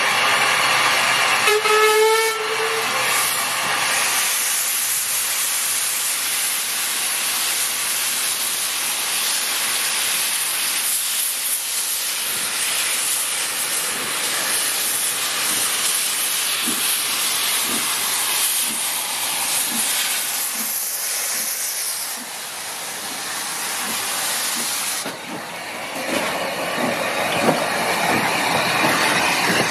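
Saddle tank steam locomotive No. 72 gives a short whistle about two seconds in, then moves off with its cylinder drain cocks open: a long loud hiss of steam with slow, faint exhaust chuffs. Near the end the hiss dips briefly, then comes back as a rhythmic chuffing hiss as the engine passes close by.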